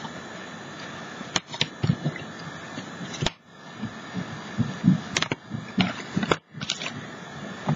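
Handling noises from a stiff mixed-media canvas piece being turned in the hands and set down on the table: a few sharp clicks and light knocks over a steady background hiss.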